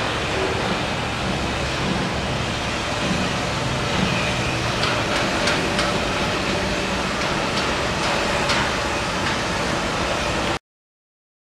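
Steady outdoor city ambience: traffic rumble with a few brief sharp knocks, cut off abruptly near the end.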